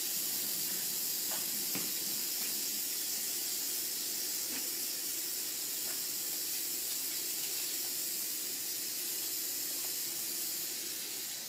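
A steady hiss of even noise, with a few faint ticks.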